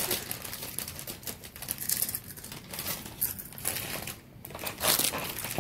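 Thin plastic crinkling and crackling in irregular bursts as it is handled, dropping out briefly a little past four seconds in.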